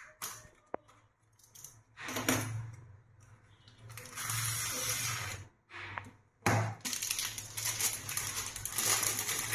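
Handling of an incense-stick pack: the paperboard carton's top flap rustles in short bursts as it is opened, then a cellophane-wrapped bundle of incense sticks is pulled out and crinkles steadily from about two-thirds of the way in.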